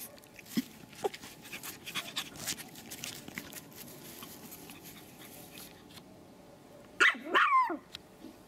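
Pomeranian puppy giving a high, sharp yap with a falling pitch, doubled, about seven seconds in, after a stretch of faint rustling and clicks.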